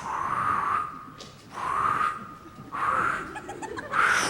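A man's voice imitating jungle animal calls: four repeated calls, each under a second long, about a second apart.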